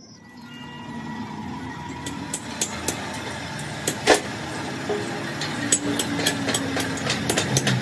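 Steel parts clinking and knocking as they are handled and set on a steel tractor front blade frame, with one louder knock about four seconds in, over a steady mechanical hum.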